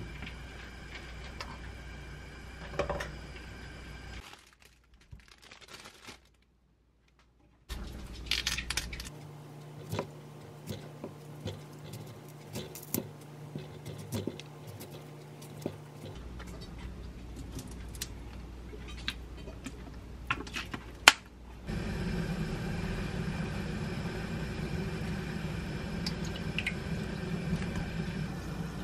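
A kitchen knife cutting broccoli into florets on a wooden cutting board: a run of irregular sharp knocks and clicks over several seconds. Later a louder steady low hum sets in.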